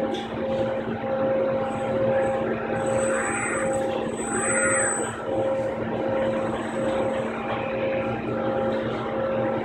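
KUKA industrial robot arm's servo drives whining as the arm moves, rising then falling in pitch twice, about three and four and a half seconds in, over a steady machine hum.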